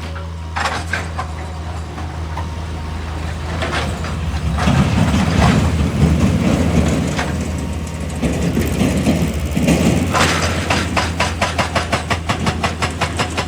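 Excavator's diesel engine running steadily, with scattered knocks and a louder rough stretch of working noise. From about ten seconds in, a fast, even clatter of several sharp strikes a second begins.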